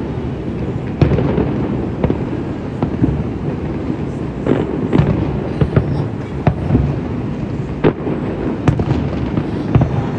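Aerial fireworks shells bursting: a continuous low rumble with sharp bangs about once a second.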